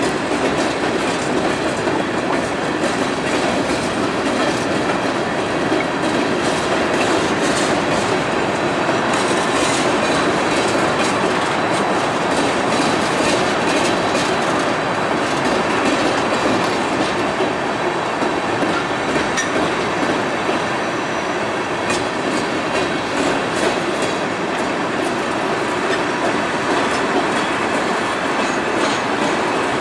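Freight train cars (tank cars, then centerbeam flatcars) rolling past on a steel railroad bridge: a steady rolling noise of wheels on rail, with scattered clicks and clatter.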